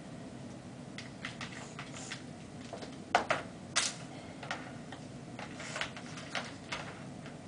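Irregular light clicks and taps over a steady low hum, with a few sharper ones about three and four seconds in.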